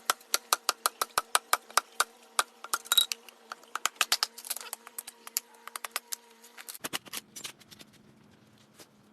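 Moso bamboo strips being worked: a fast, irregular run of sharp knocks and cracks, about four a second, thinning out after about seven seconds. A faint steady hum sits underneath and stops about seven seconds in.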